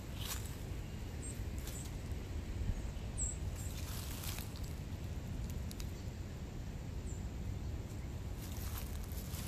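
A few footsteps and rustles through dry fallen leaves and undergrowth, sparse, over a steady low rumble.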